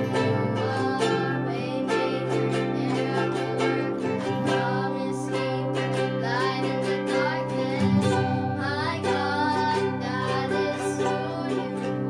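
Music on plucked strings with a singing voice, most plainly in the middle.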